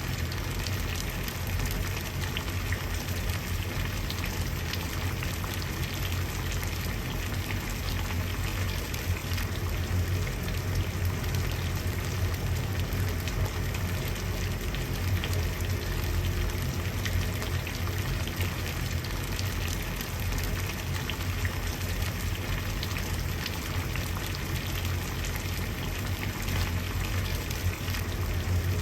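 Water at a rolling boil in a pot or kettle, bubbling steadily with a dense crackle of popping bubbles and a low rumble underneath.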